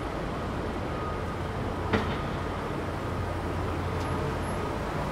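Steady low vehicle rumble over city noise, with a single sharp knock about two seconds in.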